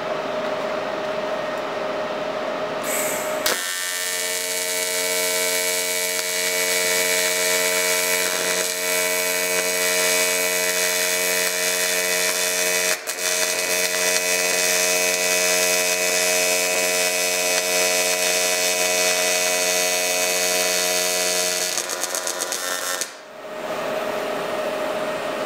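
AC TIG welding arc on quarter-inch aluminum from an Everlast Hurricane 220 MTS-C, set to 125 Hz AC frequency. The arc strikes about three and a half seconds in and holds a steady buzz for nearly twenty seconds. Near the end the buzz goes uneven as an unsteady foot pedal tapers the current down, then the arc cuts out.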